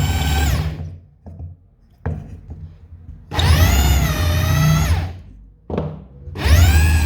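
Electric power tool motor, a high whine, switched on and off several times: it winds down just under a second in, a few light knocks sound in the pause, then it spins up again, stops, gives a short burst and starts once more. While running its pitch sags and recovers, as the motor comes under load in wood.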